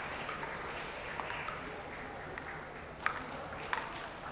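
Table tennis balls clicking against tables and paddles amid the hum of a large hall. Two sharper clicks come about three seconds in, less than a second apart.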